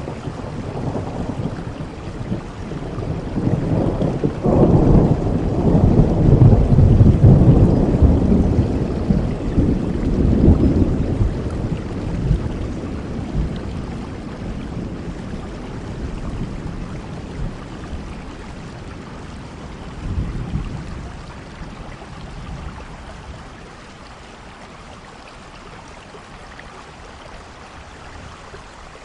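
Steady rain with a long roll of thunder that builds over the first few seconds, rumbles loudest for several seconds, then slowly fades away, leaving only the rain.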